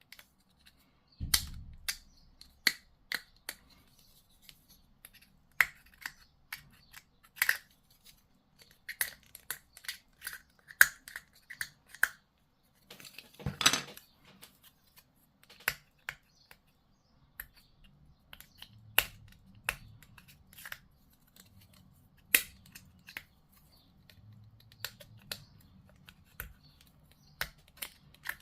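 Plastic model-kit parts clicking, snapping and being snipped as they are cut free and fitted together: irregular sharp clicks throughout, with a longer scraping rustle about 13 seconds in.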